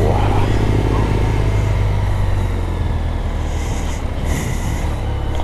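Motorcycle engine running steadily as the bike rides off at terminal speed, with wind rushing over the microphone.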